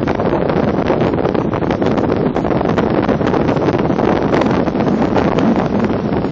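Stormy wind blowing hard across the microphone: a loud, steady rush of wind noise with no let-up.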